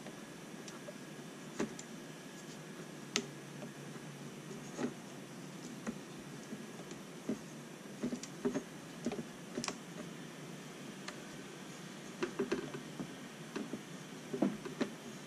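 Irregular small plastic clicks and taps, sometimes two or three together, from an opened Turnigy TGY-i6 radio transmitter being handled and probed, over a steady faint hiss.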